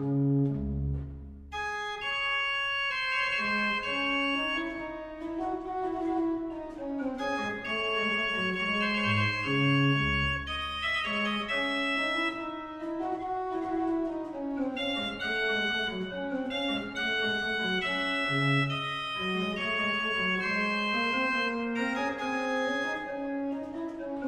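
Baroque pipe organ (the Trost organ) playing a contrapuntal chorale variation: a bright upper melody over moving lower lines, with deep bass notes about a second in and again about ten seconds in.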